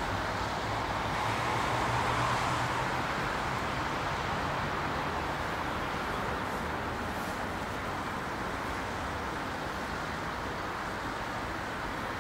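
ICE T electric multiple unit rolling slowly away through the station: a steady rumble with a low hum that swells about two seconds in and then slowly eases off, over a constant background of traffic noise.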